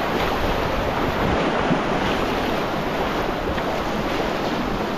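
Steady rushing of whitewater as kayaks run down a river rapid, heard close on the kayaker's microphone.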